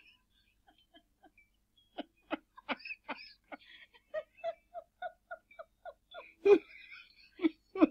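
A person laughing in short, stifled bursts, several a second, louder near the end.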